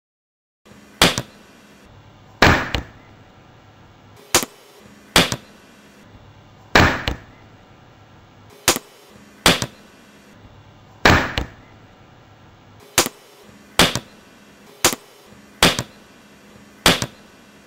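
A bare hand slapping a netted, plastic-wrapped ham over and over: about fifteen sharp smacks, roughly one a second, some quickly followed by a second one.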